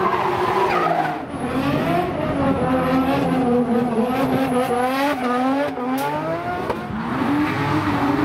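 Nissan Skyline R32 drift cars' engines revving hard, the pitch climbing and dropping again and again with the throttle, with tyres squealing through the slides.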